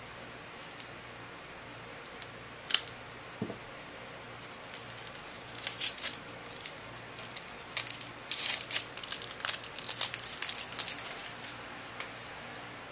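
Packing material crinkling and rustling as it is handled and pulled apart while a shipping box is unpacked: one sharp click a few seconds in, then a long stretch of dense crackling.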